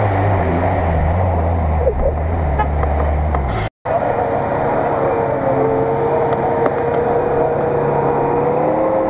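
Lada Niva engines running under load as the cars drive through deep mud: a steady low engine drone, then, after an abrupt cut about four seconds in, another Niva's engine whose pitch slowly rises.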